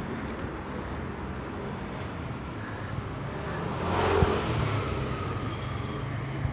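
Street traffic: a car engine running close by with a steady low hum, growing louder to a peak about four seconds in, where there is one short knock.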